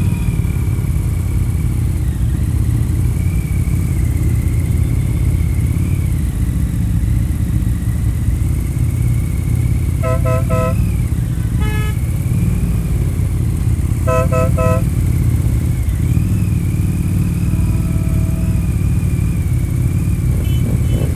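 Harley-Davidson touring motorcycle's V-twin engine running steadily at cruising speed, with heavy wind rumble. Motorcycle horns give three quick toots about ten seconds in, a single toot near twelve seconds, and three more quick toots about fourteen seconds in.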